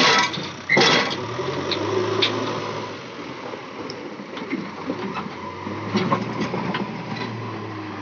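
JCB 3DX backhoe loader's diesel engine running steadily as the machine works, with two loud clanks in the first second as the backhoe bucket tips its load of earth onto the pile, and lighter metallic clicks from the bucket and linkage later on.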